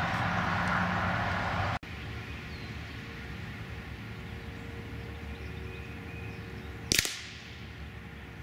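A single .22 LR rifle shot, heard from beside the target 100 yards downrange: one sharp crack about seven seconds in, over quiet steady background noise.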